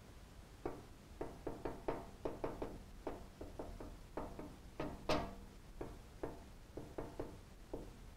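Dry-erase marker on a whiteboard while writing an equation: a quick, irregular run of short taps and squeaks as each stroke meets the board, one louder tap about five seconds in.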